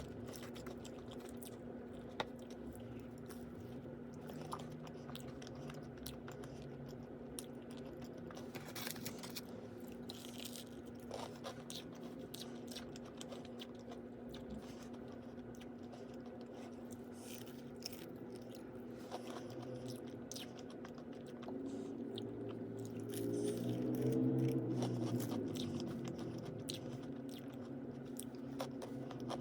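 A person chewing and crunching food, with irregular small crunches over a steady low hum. A louder pitched sound swells for a few seconds about three-quarters of the way through.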